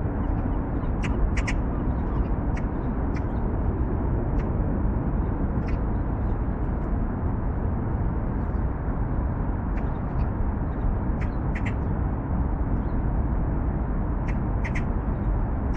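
Steady low rumble of city traffic and water, with short bird calls, several in quick pairs, scattered over it.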